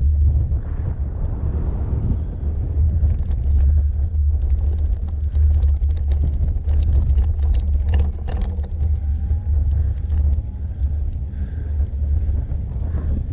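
Steady low wind rumble buffeting a bike-mounted camera microphone, over tyre noise from an e-bike riding a rough dirt and gravel track. A cluster of sharp clicks and rattles comes about seven to eight and a half seconds in, as the bike goes over the rutted ground.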